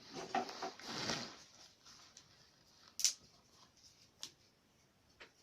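A tiny homemade stove fire that has just been lit, starting to crackle, with three sharp pops. The loudest pop comes about three seconds in, and the others a second and two seconds after it.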